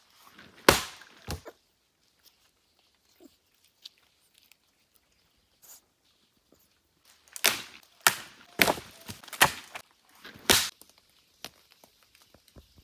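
Wooden branches being broken: two sharp cracks about a second in, then a burst of six or so close knocks and cracks in the second half.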